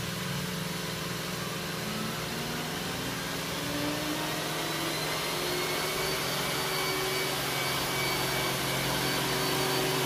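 Roomba S9 robot vacuum running: the steady whir of its suction motor, with a whine that slowly rises in pitch, growing gradually louder as it nears.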